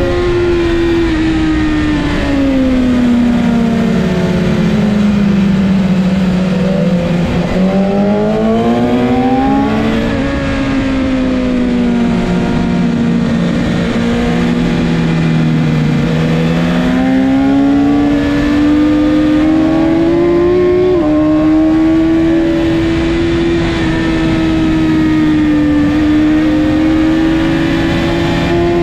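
BMW S1000RR inline-four engine running at high revs, heard from onboard with wind rush. The pitch drops over the first few seconds as the bike brakes and shifts down, climbs again, drops into a slower corner around the middle, then rises and holds high under hard acceleration.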